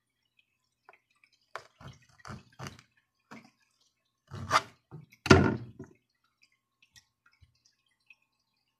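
Kitchen knife tapping and cutting on a plastic cutting board: a string of short taps, with two louder knocks around the middle.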